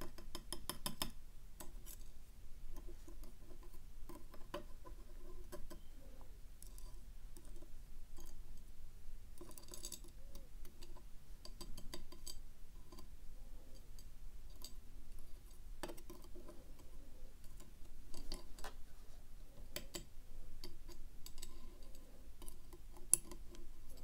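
Steel tweezers tapping and clicking against a machined aluminum pin tray as small brass lock pins are picked up and set down into its slots, in scattered light clicks with a few quick clusters.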